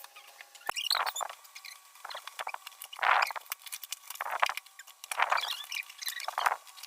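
Crinkling and rustling of parcel packaging being handled and pulled open, in about seven short, irregular bursts.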